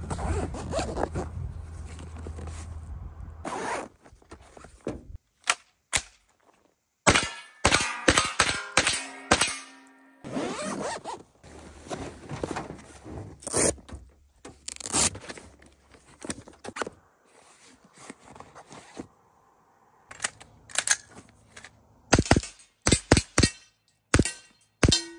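Handling of a padded nylon rifle case: zippers pulled, fabric scraping and thunks of gear being moved, in a string of short clips that start and stop abruptly.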